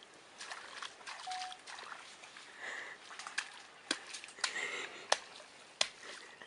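A baby gorilla's hands slapping and paddling in a shallow muddy puddle: a string of short, irregular splashes and pats.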